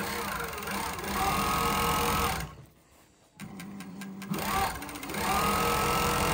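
Juki MF7923U cylinder-arm industrial coverstitch sewing machine stitching in two runs: each time it speeds up and then runs steadily at high speed. It stops for under a second about two and a half seconds in, then starts again with a few clicks.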